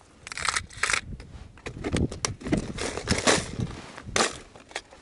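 A clear plastic lure box and hard-bodied wobbler lures being handled: irregular clicks and clatter of plastic, with short rustles.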